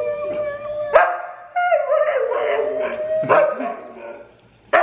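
Siberian husky howling: long wavering howls sliding down in pitch, set off by a dog-howling video played from a laptop. Sharp barks cut in about a second in, around three seconds in and near the end.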